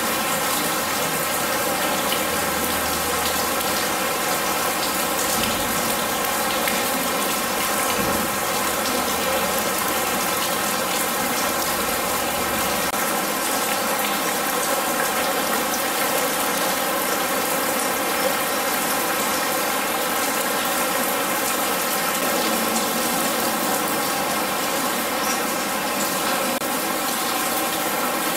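Simulated rain falling steadily onto corrugated metal roofs and scrap metal in a walk-through rain installation: a dense, unbroken hiss of water that holds an even level throughout.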